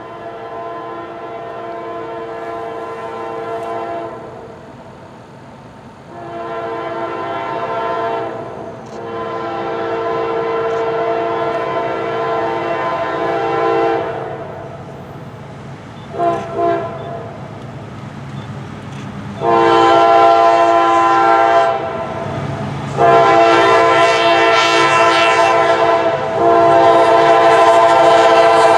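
Locomotive multi-chime air horn sounding a series of long blasts with one short blast between them, growing louder as the train approaches. The rumble of the train builds underneath in the second half.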